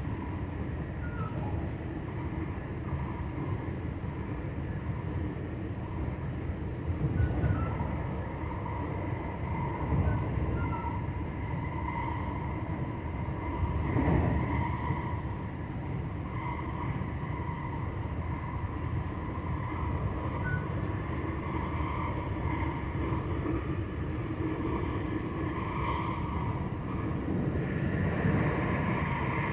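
JR West 225 series 0 electric multiple unit with a Toyo Denki IGBT inverter, running along the line: a steady low rumble of wheels on rail under a steady high whine, with a few louder thuds.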